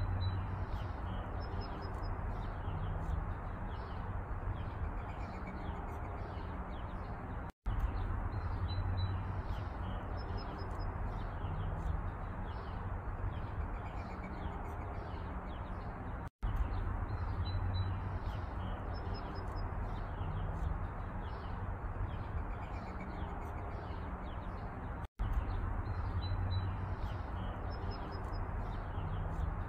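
Outdoor ambience: small birds chirping now and then over a steady low rumble. The same few seconds repeat, with a brief silent break about every nine seconds, three times in all.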